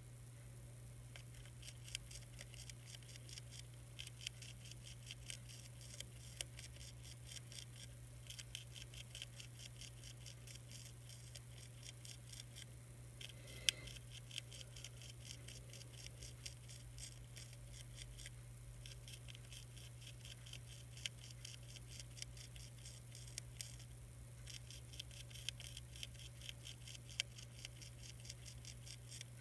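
Monarch caterpillar chewing a milkweed leaf: faint, rapid crisp clicks, about five a second, in runs of several seconds broken by short pauses, with one sharper click about halfway through. A steady low hum lies underneath.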